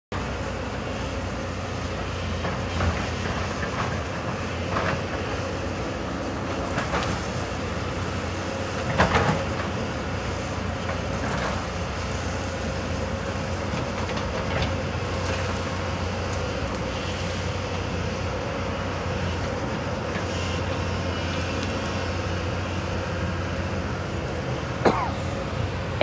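Hyundai 220 crawler excavator running steadily while it digs into a hillside, its diesel engine a constant hum. Now and then there is a sharp clank or knock from the bucket and arm working, the loudest about nine seconds in.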